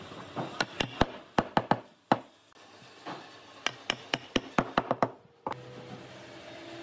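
A quick run of sharp knocks and taps of wood on wood as glued pine frame pieces are fitted together, in two irregular bursts of about a dozen strokes.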